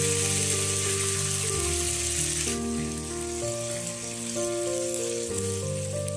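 Dry red chillies, garlic cloves and curry leaves sizzling in hot oil in a small tempering pan. The sizzle is strong for the first two or three seconds and then settles to a softer sizzle. Background music with slow held notes plays underneath.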